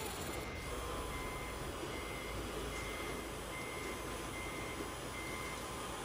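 RC truck's reversing beeper sounding seven short, even beeps, about one every 0.8 seconds, which signals the truck backing up. The beeps stop shortly before the end, over a steady hiss of motor and background noise.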